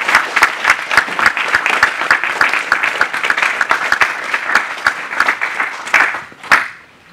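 Audience applauding: many hands clapping together, dying away about six and a half seconds in.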